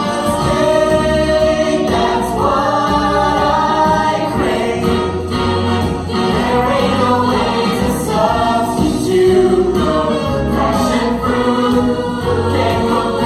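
Music: a song with several voices singing together over a backing track.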